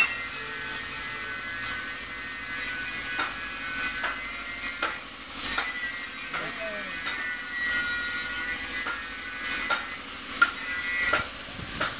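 Gravity-feed air spray gun hissing as paint is sprayed through a stencil, with a steady high whine of air under it and sharp clicks every second or two.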